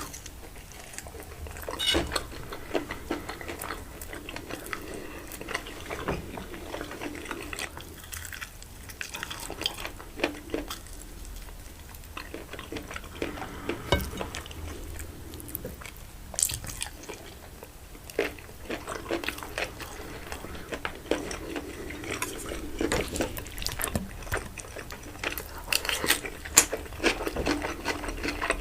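Close-miked chewing and biting: a person eating rice-stuffed chicken and salad, with many irregular small clicks and crackles from the mouth and food.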